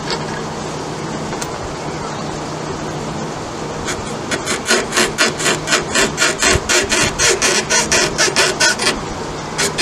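Rapid rasping strokes, about four a second, over a steady low hum: metal rubbing on metal as the new rear shock absorber's mounting eye is worked back and forth onto the motorcycle's shock mounting stud. The strokes start about four seconds in and stop about a second before the end.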